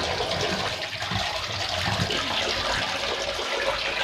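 Water running in a steady, continuous gush.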